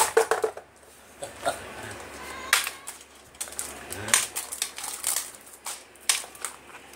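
A cardboard phone box and its inner tray being pulled apart and handled on a tile floor: irregular sharp knocks, taps and scrapes of stiff card, the loudest a knock right at the start.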